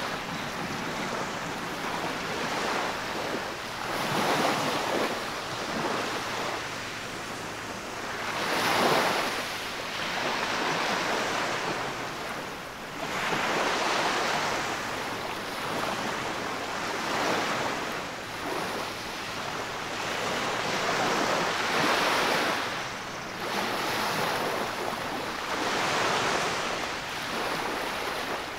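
Small waves breaking and washing up over a sandy beach, the foamy water swelling and ebbing in surges about every four to five seconds.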